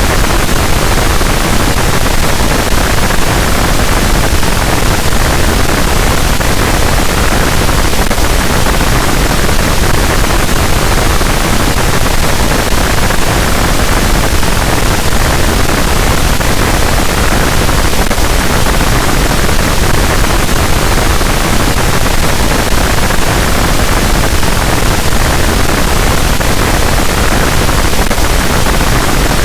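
Harsh noise wall: a loud, unchanging wall of dense static noise filling every pitch, with no rhythm or breaks.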